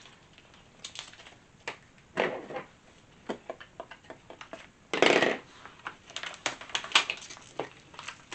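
Siser Holographic heat transfer vinyl being weeded: irregular crackles and rustles as the waste vinyl is picked up with a weeding tool and peeled off its clear carrier sheet, with a louder crinkling rustle about five seconds in.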